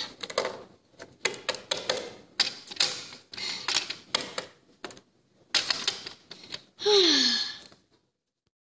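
Small plastic toy figures being tapped, knocked and set down on a wooden tabletop: a quick, irregular run of clicks and taps. Near the end comes a brief, loud vocal cry that falls in pitch, and then the sound cuts off.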